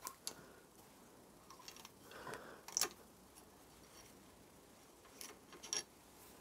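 Faint, scattered small metallic clicks and taps, with a brief soft scrape about two seconds in, from winding a stainless steel wire thread insert through a threaded hole with a hand insertion tool. The sharpest click comes about three seconds in, and two more come near the end.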